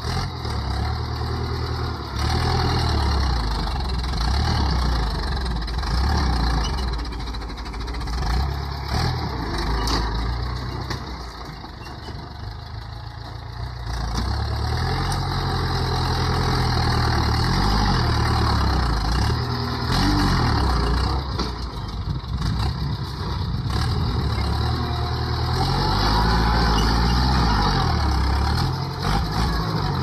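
Ford farm tractor's diesel engine working under load as its front dozer blade pushes soil, the engine note rising and falling. It eases off for a few seconds near the middle, then pulls hard again.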